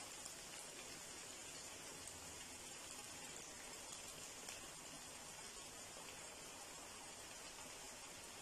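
Faint, steady sizzling and bubbling of hot oil around raw beef mince kababs (kachay keemay kay kabab) shallow-frying in a frying pan.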